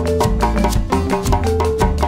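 Background music with a steady beat: regular percussion hits over a bass line and a melody.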